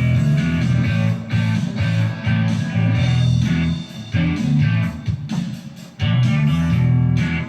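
Rock music with guitar and bass playing. It drops quieter about four seconds in and comes back up at about six seconds.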